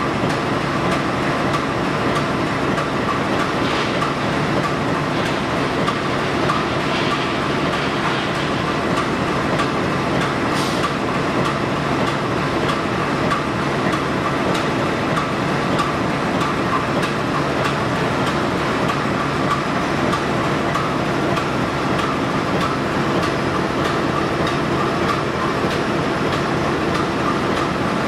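GE U18C diesel-electric locomotive CC 201 83 05 at idle: its eight-cylinder GE 7FDL diesel engine running at a steady, even idle with a constant hum and no change in speed.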